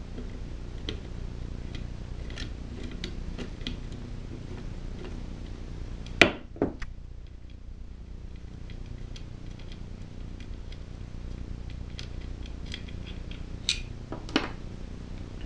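Socket ratchet clicking in short strokes as the 5/16-inch bolt holding a small engine's oil fill tube is backed out, with light metal tool clinks. Two sharper metal knocks come about six seconds in, and two more near the end.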